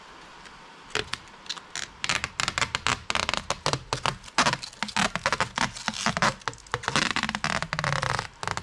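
Protective plastic film being peeled off the face of a new number plate: sharp crackling and crinkling starting about a second in, growing denser as the film pulls away, and stopping near the end.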